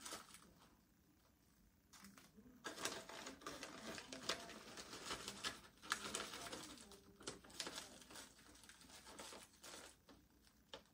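Small plastic zip-top bags of soft-plastic fishing baits crinkling and rustling as they are opened and handled, in faint irregular bursts from about two seconds in that thin out near the end.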